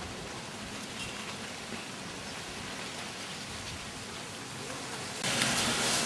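Steady outdoor background hiss with no distinct events, stepping up louder about five seconds in, when a faint low hum joins it.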